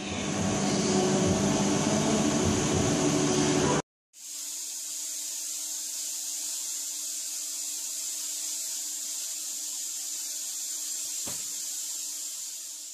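CNC machine cutting 410 stainless steel with solid-carbide tooling: loud, dense machining noise for about four seconds, then after an abrupt break a quieter, steady spindle whine with hiss and a single click near the end.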